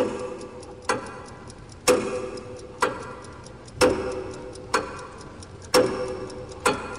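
Clock ticking about once a second, the ticks alternating stronger and weaker in a tick-tock. Each tick leaves a brief ringing tone behind it.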